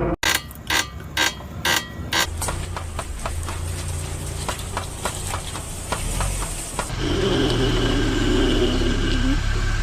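A car making mechanical noise: sharp clicks about twice a second, fading into faster, fainter ticking. At about 7 s it changes to a steadier warbling hum with a thin high whine.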